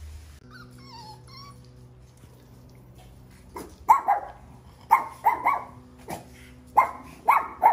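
Miniature Schnauzer puppy barking in short, high-pitched yaps, starting about four seconds in and coming singly and in quick pairs, about seven in all.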